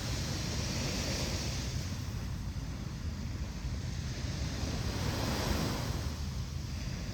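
Ocean waves breaking and washing on a beach, with a steady low rumble from wind on the microphone; the surf swells about a second in and again about five seconds in.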